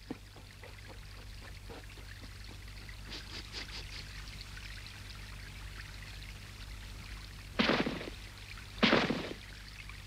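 Cartoon sound effect of meltwater trickling, with two louder rushes of water noise near the end, each about half a second long.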